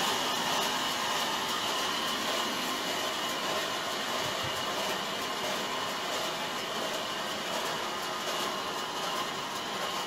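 Large sawmill band saw running steadily, driven by an electric motor through a flat belt: a continuous mechanical whir with a steady high-pitched whine.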